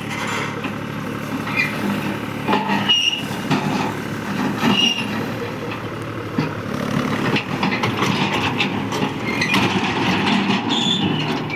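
Mahindra backhoe loader's diesel engine running steadily while working, with short high-pitched metallic squeals and a few knocks from the moving arm and bucket.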